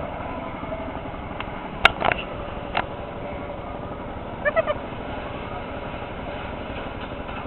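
Small amusement-park ride motorboat's motor running steadily, with water noise under it. A few sharp knocks come around two seconds in, and a brief high chirp comes about halfway through.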